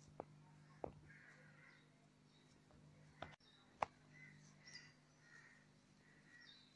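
Faint sounds of hands kneading parotta dough on a steel plate: four soft sharp taps, the loudest near the end, over a low steady hum; otherwise near silence.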